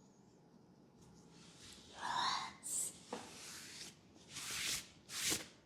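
Soft whispering with breathy hisses and a small click, starting about two seconds in after near quiet.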